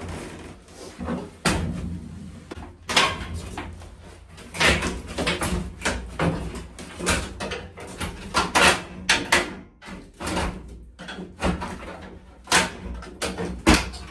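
Irregular knocks, clacks and scrapes of a wooden cabinet panel being pried and worked loose by hand.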